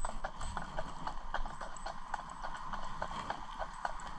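Hooves of a pair of Clydesdale horses clip-clopping steadily on the road as they pull a cart, a quick run of sharp hoof strikes.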